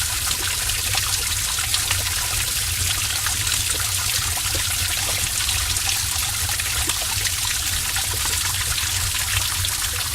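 Heavy stream of water running and splashing in a cave: a steady, dense rush with many small splashes over a low rumble.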